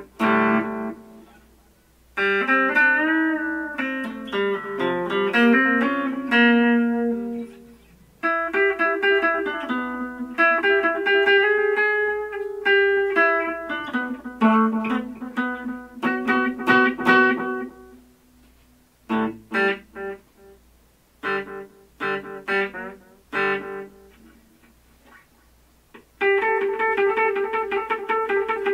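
Electric guitar (Epiphone SG) played through a Boss Katana Mini amp with its tape-style delay on, gain at half and volume full. Melodic single-note lines with bends, thinning to a few scattered plucked notes for several seconds in the second half, then picking up again near the end.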